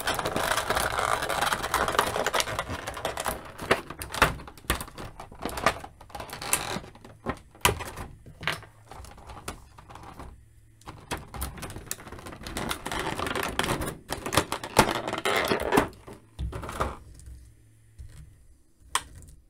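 Clear plastic blister tray crinkling, crackling and clicking as an action figure and its accessories are pried out of it by hand. The crackling comes in two long bursts, at the start and again about two-thirds through, with scattered sharp clicks between and only a few clicks near the end.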